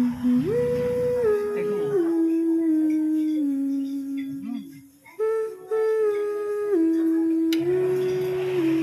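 A slow melody of long, steady held notes that step up and down in pitch, with a short break about four and a half seconds in.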